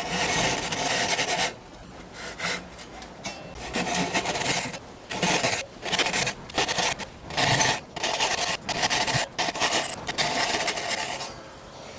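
A hand tool cutting back and forth into the wooden 1x2 stock to make the recess for the trigger mechanism. A continuous scrape at first, then quick scraping strokes, roughly two a second.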